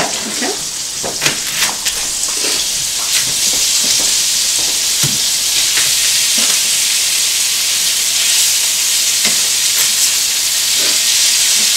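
Raw ground beef sizzling as it is crumbled by hand into hot melted butter in a skillet: a steady frying hiss that builds over the first couple of seconds and then holds. Short knocks of a knife chopping onion on a cutting board are scattered through it.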